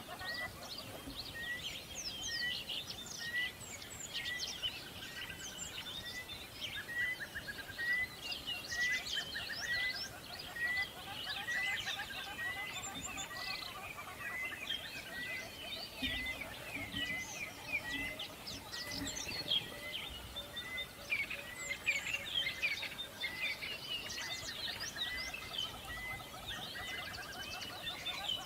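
A chorus of birds chirping and trilling, with one bird repeating a short, even call about every three-quarters of a second.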